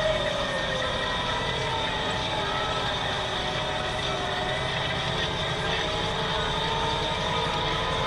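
Deutz 7250 tractor running steadily under load while ploughing, a low rumble with a whine that slowly wavers in pitch.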